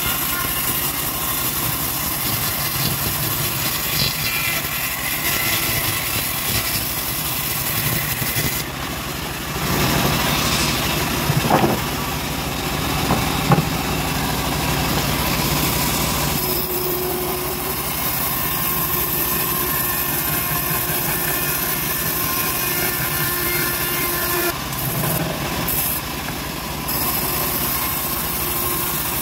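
Homemade bandsaw sawmill running, its band blade ripping acacia wood with a steady mechanical drone. The cut grows louder in the middle, with two sharp knocks, and a steady hum comes in later.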